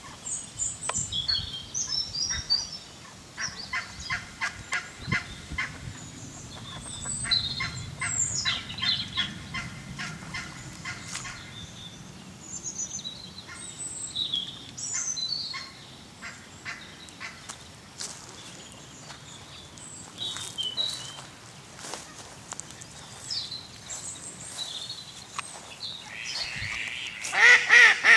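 Birds calling around a pond: scattered high chirps and long runs of rapid rattling calls, with a loud honking waterfowl call near the end.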